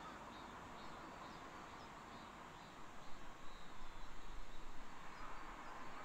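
Outdoor mountain-forest ambience: a steady rushing noise with faint, high bird chirps. From about three seconds in it turns louder and uneven, with a low rumble.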